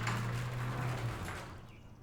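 Sectional garage door travelling on its opener, a steady motor hum under the rattle of the moving door, which winds down and stops about a second and a half in. Faint birdsong chirps continue after it stops.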